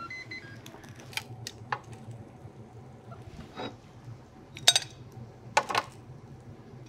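Metal kitchen tongs clicking and tapping as crisp bacon is lifted off an OptiGrill's ribbed grill plate and set on a plate: a handful of sharp clicks, the loudest about two-thirds of the way through. At the very start the grill's electronic beeps step through their last few notes, signalling that cooking is done.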